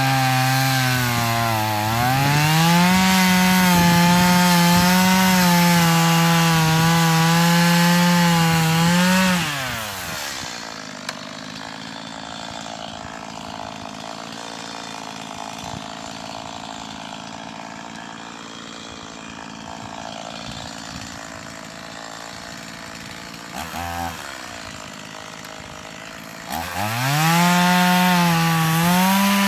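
Small two-stroke chainsaw at full throttle shaving bark off a green log. Its engine note dips and then climbs back up in the first couple of seconds, and it drops to a quiet idle about ten seconds in. It revs back up to full speed near the end.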